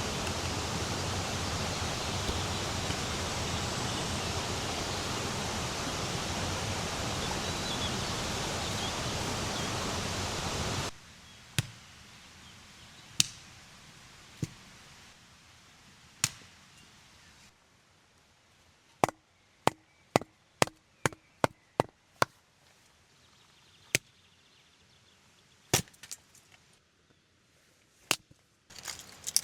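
A steady rush of water noise for about ten seconds, cutting off suddenly, then a quiet stretch of sharp, separate wooden knocks like wood being chopped, quickest near the middle.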